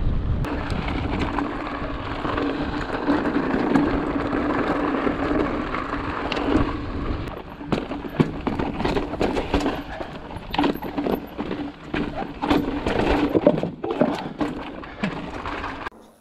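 Mountain bike on a rough trail: tyre and riding noise with rattling and knocks from the bike. The knocks come thicker and more broken up in the second half.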